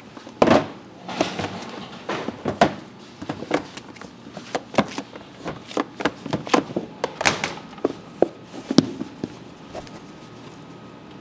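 Gloved hands folding a large mass of bread dough in a plastic tub. The dough and the tub make an irregular run of dull thumps and knocks, some much louder than others, which stop about nine seconds in. The folding is part of working the dough between rests.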